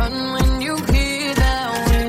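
Dance-pop track with a steady four-on-the-floor kick drum, about two beats a second, under a pitched melody line.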